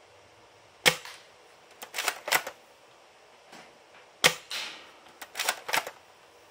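Gang Jiang M24 bolt-action gel blaster fired twice, about three and a half seconds apart. Each sharp shot is followed about a second later by a quick cluster of clacks as the bolt is cycled for the next shot.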